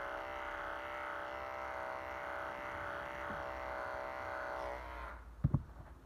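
Electric dog-grooming clippers running with a steady hum as they clip the wig hair on a model dog head's ear, switched off about five seconds in. A couple of sharp knocks follow.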